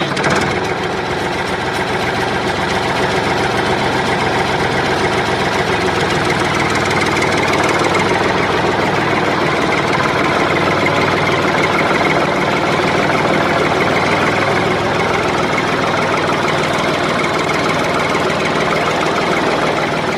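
A mini tractor's small engine running steadily, with a fast, even chatter.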